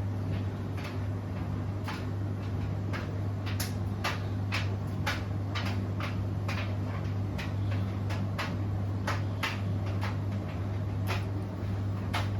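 Beko WTK104121W washing machine running: a steady low hum with irregular sharp clicks and knocks, one or two a second, as the drum turns.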